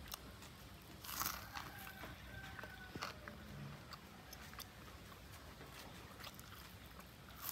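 Someone eating: soft bites and chewing clicks, with a louder crunch about a second in.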